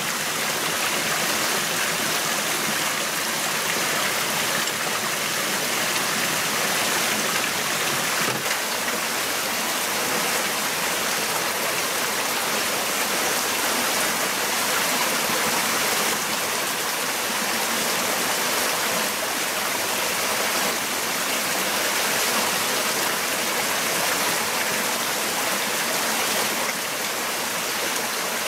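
Steady sound of water running over the rocks of a small stream.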